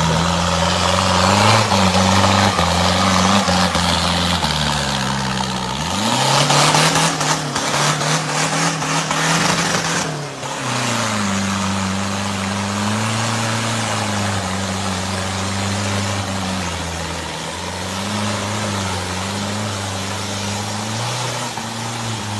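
Diesel pickup truck engine revving hard under load in deep mud, its note rising and falling over and over as the wheels spin. A rush of mud and water thrown by the tyres runs over it, heaviest about a third of the way in.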